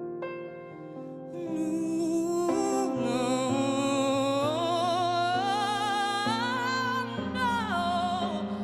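Female singer holding a long wordless melody with vibrato over sustained accompanying chords. It swells about a second and a half in, climbs steadily in pitch, and falls away near the end.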